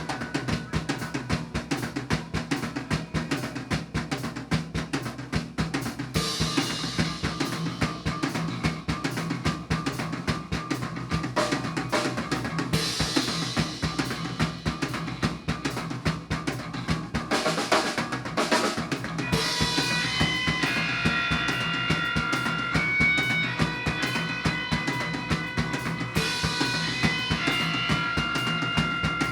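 Rock band playing live, instrumental: a driving drum-kit beat with bass drum and snare, and held high melodic notes coming in about two-thirds of the way through.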